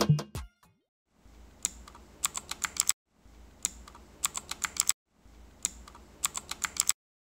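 Keys of a Rapoo V500 Pro mechanical keyboard being typed in three short bursts of clicks. Each burst is a single keystroke followed by a quick run of about six.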